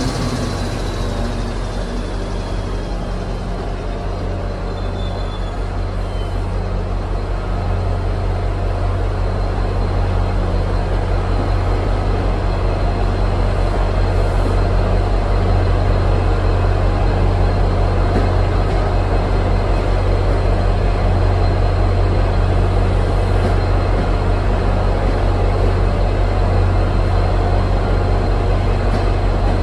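Diesel-electric locomotive engine running with a steady low drone as a push-pull passenger train rolls slowly past, growing a little louder over the span.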